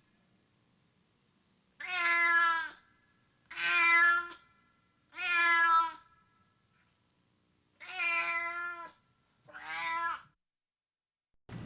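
A domestic cat meowing loudly: five drawn-out meows of about a second each, spaced roughly one to two seconds apart, with the last one shorter.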